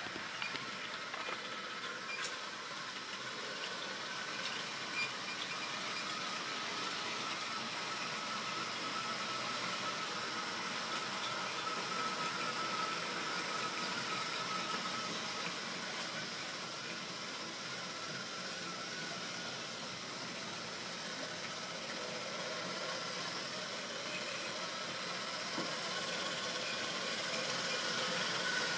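Model railway train running on the track: a small electric motor's thin whine over a steady hiss of wheels on rails, swelling and easing a little in loudness.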